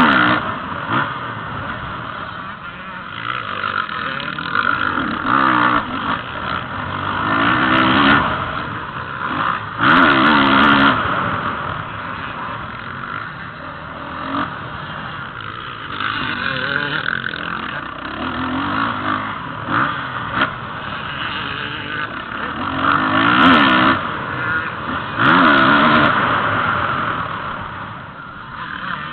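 Motocross dirt bikes revving hard on a dirt track. The engine pitch climbs and drops again and again as they accelerate, shift and pass, with loud swells every few seconds.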